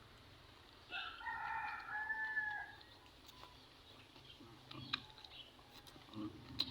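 A rooster crowing once, a single crow of about two seconds starting about a second in, held and then falling at the end.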